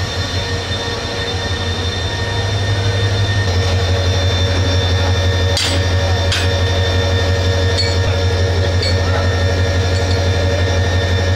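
Diesel locomotive engine idling with a steady low hum. About halfway through comes a sharp metallic clank, followed by a few lighter clinks, as the coupler and brake-hose fittings between the locomotive and a carriage are worked by hand.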